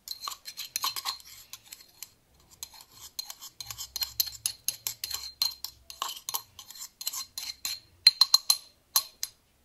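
A spoon clinking and scraping against a bowl in quick, irregular strokes, stirring a grated bottle-gourd mixture. The sharpest clinks come near the end.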